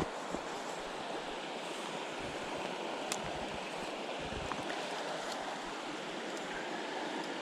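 Mountain stream water running steadily, a continuous rushing hiss.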